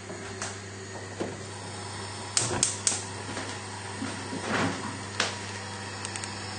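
Kitchen handling sounds: a few sharp clicks and knocks, three of them in quick succession about two and a half seconds in, over a steady low hum.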